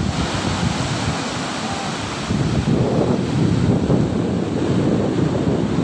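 Ocean surf breaking on a sandy beach, with wind buffeting the microphone. The wash grows louder about two seconds in.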